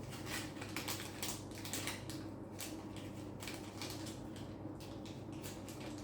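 Hands handling small intercom parts: irregular light clicks, taps and rustles, over a faint steady low hum.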